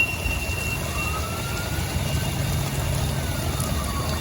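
Emergency vehicle siren wailing, its pitch slowly rising and falling, over steady rain noise. A high steady squeal fades out about a second in.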